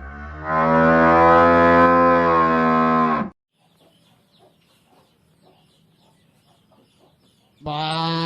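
Cow mooing: one long, steady moo of about three seconds. After a quiet gap, a second loud animal call begins near the end.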